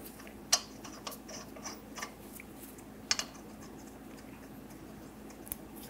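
Lug nuts being spun on by hand onto the wheel studs of a steel wheel: scattered faint metallic clicks and ticks, the sharpest about half a second in and about three seconds in.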